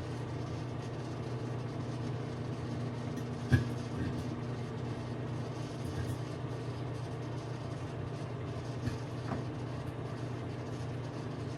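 Microwave oven running with a steady hum while bacon fat pops and spits inside a ceramic microwave bacon cooker, with a handful of sharp pops, the loudest about three and a half seconds in.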